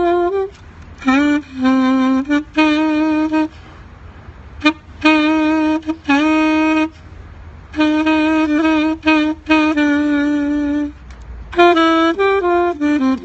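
Saxophone playing a slow hymn melody in phrases of held notes with short breaks between them, some notes scooping up into pitch.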